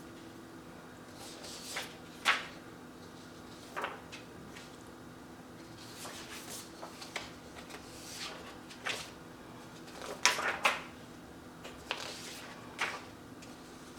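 Loose printed photos and card being handled: a dozen or so brief paper rustles and light taps at irregular intervals, the loudest about ten seconds in, over a faint steady hum.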